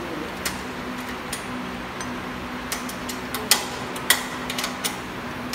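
Metal wrench clicking and clinking against bolts and a stainless-steel frame as bolts are tightened, in irregular sharp clicks, the loudest two about three and a half and four seconds in. A steady low hum runs underneath.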